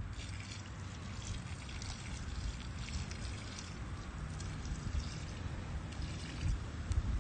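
Water poured from a plastic cup splashing onto bare dirt in several short pours, over a low rumble.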